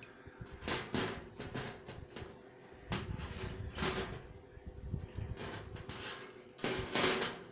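Handling noise from a folding pocket multitool being worked open one-handed close to the microphone: a string of short scrapes and rubs, the loudest near the end.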